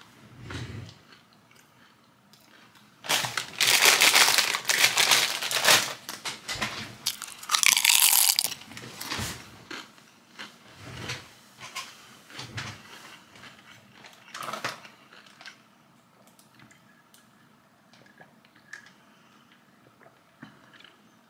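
Loud crunching, crinkling noise in two stretches, from about three to six seconds in and again around eight seconds, followed by scattered quieter clicks and rustles.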